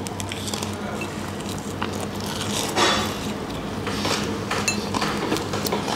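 Someone biting into and chewing an aromatic duck pancake, with small clicks and light clinks of dishes, over a steady low hum.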